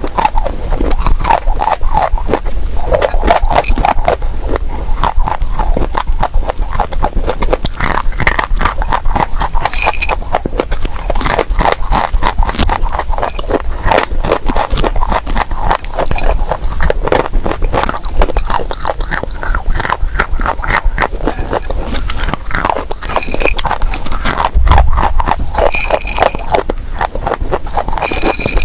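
Dry, crunchy clay crunching and crumbling in a continuous close-up stream of sharp cracks and crackles.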